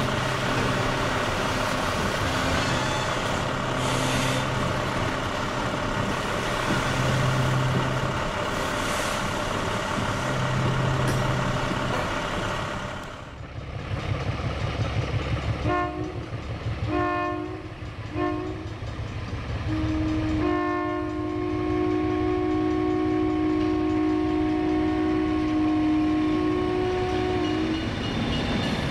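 Loaded freight cars of a wood-chip train rolling steadily past a grade crossing. After a break, a diesel locomotive's chime horn sounds three short blasts, then one long blast held for about seven seconds.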